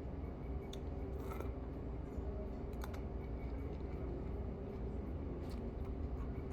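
Steady low room hum with a faint constant tone, and a few light, sharp clicks of eating utensils.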